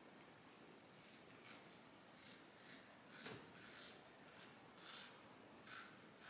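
Rockwell 6S safety razor scraping through lathered stubble, a series of short strokes about two a second on a with-the-grain first pass.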